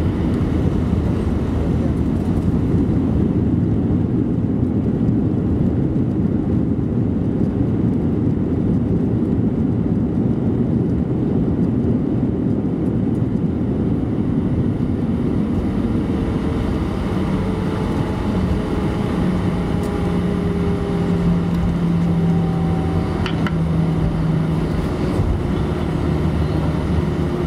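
Cabin noise of an Airbus A319-112 on its landing rollout, ground spoilers raised: a loud, steady rumble of the wheels and the CFM56 engines. After about sixteen seconds, as the aircraft slows, the rumble eases and a few steady engine tones come through, one of them gliding slowly down.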